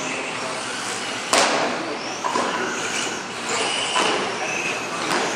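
1/10 scale electric touring cars racing on carpet: motor whine rising and falling over the hiss of tyres. A sharp knock comes about a second and a half in.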